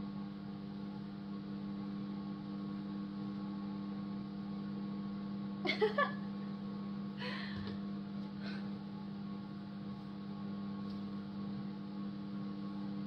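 Steady electrical hum, a few even tones held without change. About six seconds in, a brief vocal exclamation, then two soft, short rustles.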